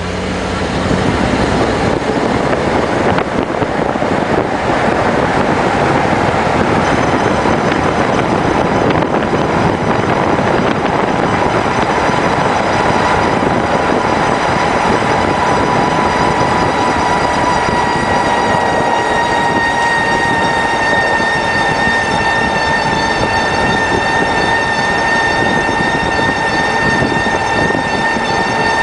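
Mercedes-Benz W124 E500's left rear wheel hub giving off a steady whining tone over the road noise as the car drives off. The whine builds in several seconds after pulling away and grows stronger and more pronounced from about halfway on. It is the abnormal hub noise the owner is tracking down.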